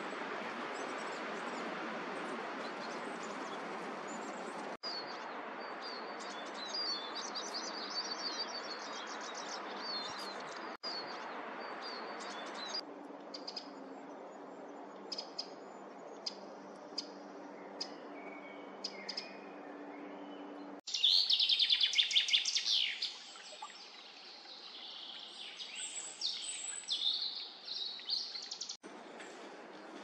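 Small woodland birds calling, in several short recordings cut together over a steady background hiss. About two-thirds of the way through, a Eurasian wren sings a loud, fast, high trilling song.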